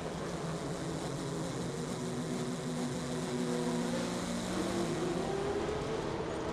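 Onboard sound of a Toyota TS040 Hybrid Le Mans prototype's V8 engine running at speed, with wind and road noise. The engine pitch rises about four and a half seconds in.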